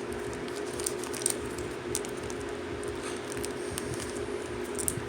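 Trading cards being handled, with light clicks and rustles scattered throughout, over a steady background hum.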